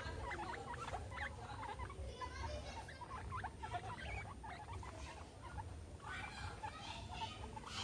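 Guinea pigs making a quick run of short squeaks and chirps, with a faint low rumble underneath.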